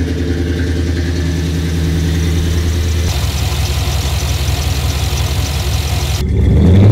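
GM LS V8 engine, freshly swapped into a 2011 Jeep Wrangler JK Unlimited, idling steadily just after its first start on a base tune. The idle changes character about three seconds in and grows louder near the end.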